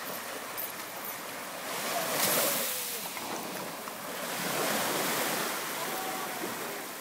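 Small waves breaking and washing up a sandy, shelly beach. The surf swells twice, about two seconds in and again around four and a half seconds in.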